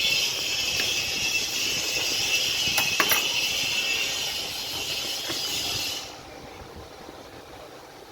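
A steady, high-pitched hiss with a few sharp metallic clicks about three seconds in. The hiss cuts off suddenly about six seconds in.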